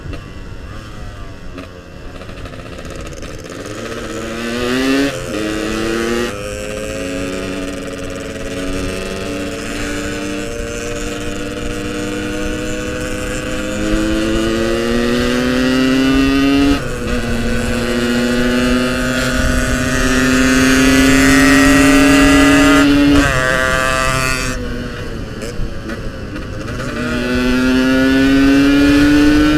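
Yamaha RX-King's two-stroke single-cylinder engine pulling through the gears on the road. Its pitch climbs and drops sharply at gear changes about five, seventeen and twenty-three seconds in, then falls away as the throttle eases and climbs again near the end.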